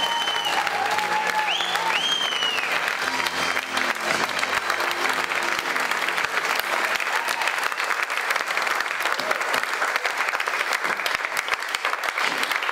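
Audience applauding steadily, a dense crackle of many hands clapping. The backing music is still heard under it for the first few seconds, then ends.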